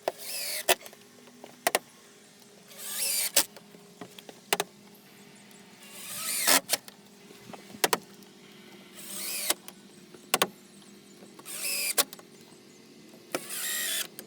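A cordless drill/driver driving screws into composite deck boards: about six short whining runs, one every two to three seconds, each ending in a sharp knock, with single sharp knocks in between.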